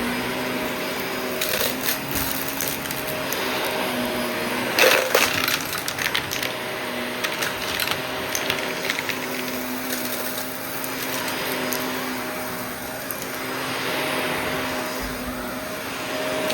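Shark vacuum cleaner running with a steady motor hum, with crackling and rattling of debris being sucked up, loudest about five seconds in.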